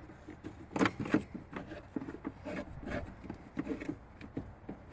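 Hand-operated oil-extractor pump being worked by hand to push smoke into a vacuum line: irregular rubbing and scraping with sharp plastic clicks and knocks, the loudest about a second in.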